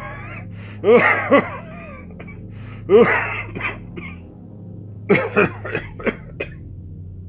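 A man coughing in three fits: one about a second in, one about three seconds in, and a longer run of coughs from about five seconds. A low, steady drone of ambient music runs beneath.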